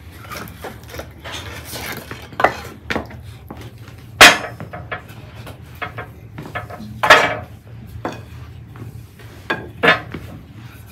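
Kitchen utensils and dishes clattering: scattered knocks and clinks at an uneven pace, the loudest about four seconds in and again around seven and ten seconds.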